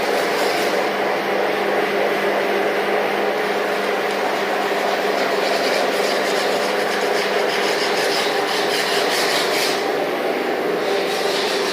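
Rotary floor-scrubbing machine running: a steady motor hum under a rubbing, rasping scrub of the floor, the scrubbing hiss growing stronger and easing off a few times.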